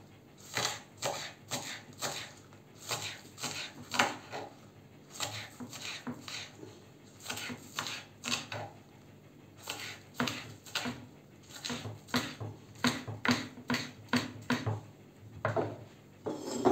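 Kitchen knife chopping onions on a wooden cutting board: quick, sharp knocks of the blade on the wood, about three a second, with a couple of brief pauses.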